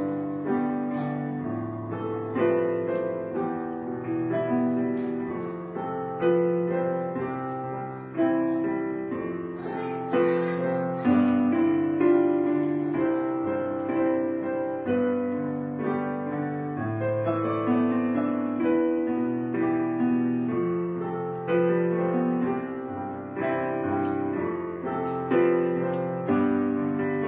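Background solo piano music, notes struck and left to ring.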